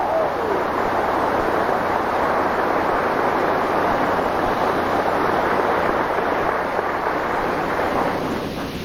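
Audience applauding steadily, a dense even clapping that eases off near the end.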